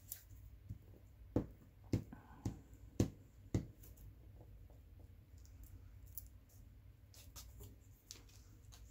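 Hands working paper and glue on a craft table: about five sharp light clicks and taps in the first four seconds, then fainter scattered ticks.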